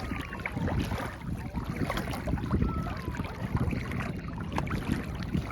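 Shallow water sloshing and splashing around people wading, with irregular small splashes and a low rumble of wind on the microphone.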